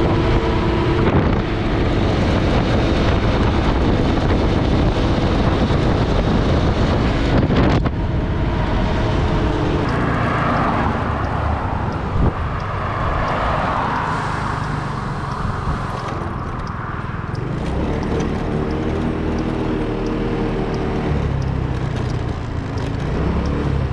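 A motor vehicle's engine running as it drives, with steady low rumble and road noise, and a couple of short knocks.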